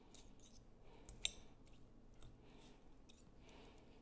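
Faint clicks and scrapes of two metal forks shredding cooked chicken in a glass bowl, with one sharper click about a second in.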